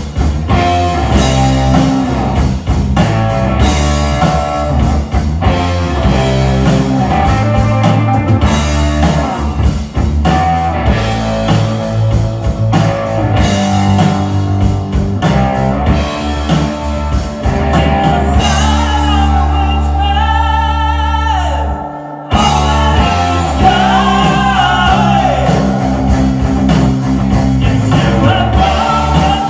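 Loud live heavy metal band: distorted electric guitars and drum kit, with singing. Near the middle a long held note with vibrato slides downward, and the sound drops out for an instant before the band comes back in.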